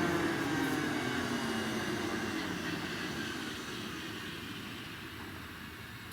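Eurocopter AS 365 Dauphin twin-turbine rescue helicopter winding down after shutdown: the turbine whine and rotor sound fall steadily in pitch and fade.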